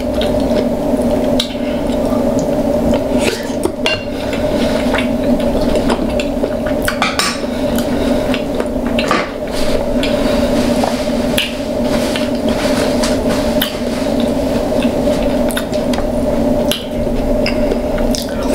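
King crab claw shells being cracked and picked apart while eating, a run of irregular sharp clicks and cracks of shell and utensils, over a steady hum.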